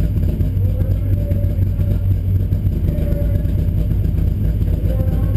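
Bilcross race car's engine idling steadily with a loud, low drone, heard from inside the stripped, roll-caged cabin while the car stands still.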